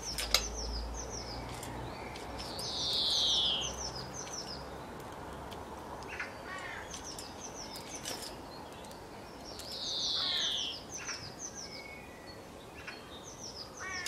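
Garden birds chirping: runs of quick, high downward chirps, with a louder, harsh downward call twice, about three seconds in and again about ten seconds in.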